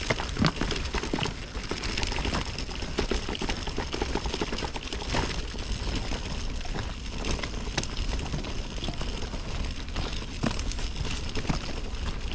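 Dog buggy pushed along a gravel path: its wheels and the walker's steps crunching and crackling over the stones without a break.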